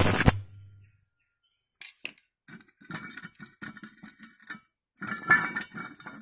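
Stick welding with a thin rod on a homemade arc-welding transformer rewound from a Lioa 3 kVA core. The arc strikes with a loud burst and a short low hum, then crackles and sputters in broken bursts, breaking off briefly twice.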